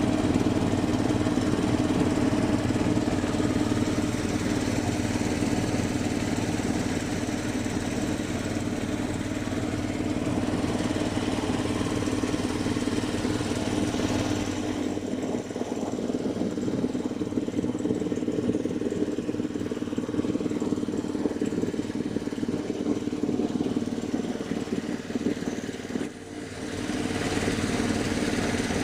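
Small fishing boat's engine running steadily while underway, dropping briefly near the end.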